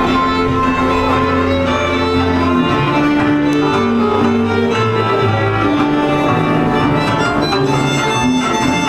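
Folk string band playing a dance tune: fiddles carry the melody over a bowed bass line, continuous and lively.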